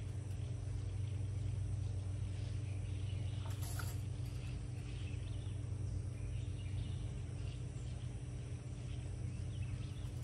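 Outdoor background: a steady low mechanical hum, with birds chirping now and then and a short hiss about three and a half seconds in.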